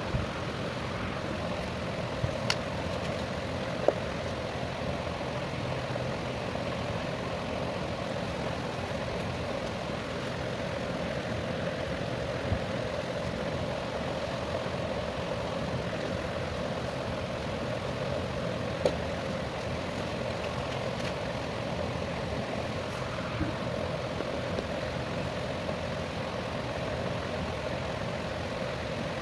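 Steady mechanical hum with a brighter mid-pitched band, broken by a handful of faint sharp clicks.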